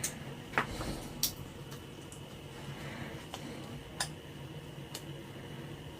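A handful of light, irregular clicks and taps from small tools and parts being handled during electronics repair work, over a faint steady hum.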